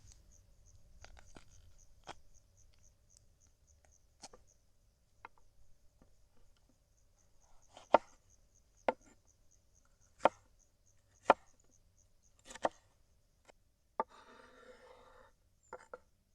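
A knife chopping food on a cutting board in irregular sharp chops, the loudest coming about a second apart in the middle, followed by a short scraping rustle near the end.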